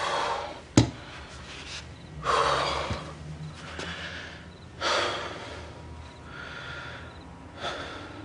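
A man breathing hard, with heavy, noisy breaths about every two to three seconds, and one sharp thud a little under a second in.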